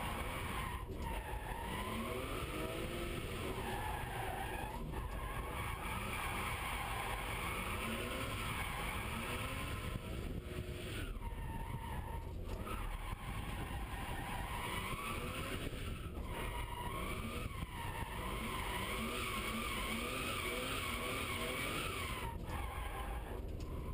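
BMW E36 M3's straight-six engine heard from inside the cabin, revving up and down under throttle while the tyres squeal through a drift. The squeal wavers in pitch and breaks off briefly several times.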